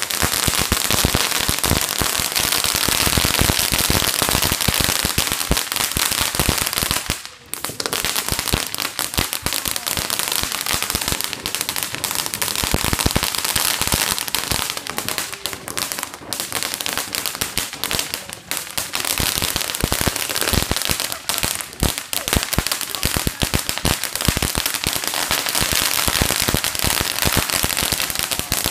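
Ground-level fireworks going off in a dense, continuous run of rapid firecracker pops and crackles, starting suddenly, with a short break about seven seconds in.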